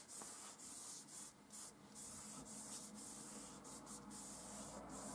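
Stick of vine charcoal rubbed back and forth across drawing paper in short, faint, scratchy strokes, building up a shaded tone.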